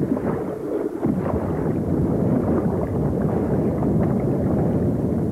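Turbulent water churning in a low-head dam's recirculating backwash, heard through an underwater camera's microphone: a dense, steady rush with no break.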